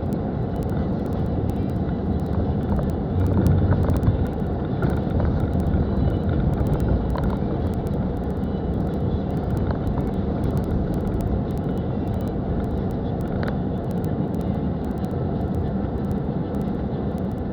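Kia Rio driving through deep snow: a steady engine drone under a dense rumble of tyre and snow noise, with a few light knocks.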